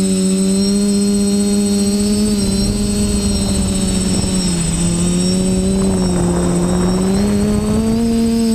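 TBS Discovery quadcopter's electric motors and propellers whining steadily in flight. The pitch dips a little about halfway through and climbs again near the end, over a rushing hiss of wind on the onboard camera's microphone.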